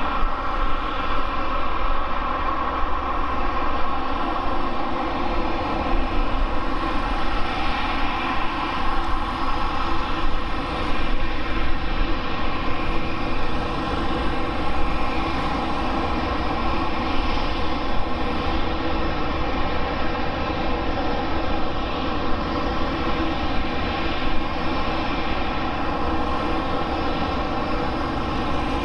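A Boeing 787-9's two Rolls-Royce Trent 1000 turbofans run at taxi power. The sound is a steady whine of many held tones over a low rumble.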